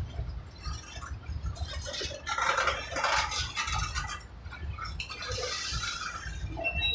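Freight cars (covered hoppers and a tank car) rolling slowly past at close range, steel wheels on rail giving a steady low rumble with scraping, clattering stretches, and a thin high wheel squeal starting near the end.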